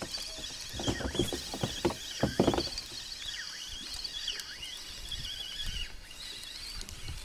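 A spinning rod and reel being worked while jigging: a short run of handling knocks and reel clicks in the first few seconds. Faint high bird chirping runs underneath throughout.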